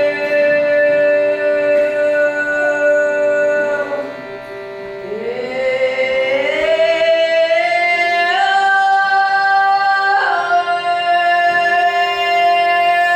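Devotional singing: one voice holds long notes over a steady drone. About five seconds in it glides upward, then steps higher twice.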